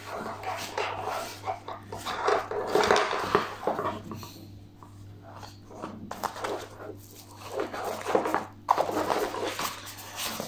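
Handling noise from a nylon tactical shoulder bag: irregular rustling and scraping of the fabric and straps as it is turned over, quieter for a couple of seconds in the middle.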